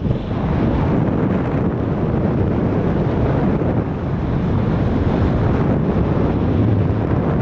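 Wind noise from the airflow of a paraglider in flight buffeting a camera microphone: a steady, loud, low rushing without a break.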